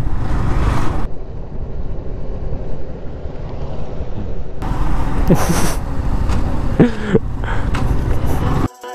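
Wind buffeting the microphone on a moving motorcycle, with the Yamaha sport bike's engine running underneath. The noise swells into a louder hiss about halfway through and cuts off suddenly near the end.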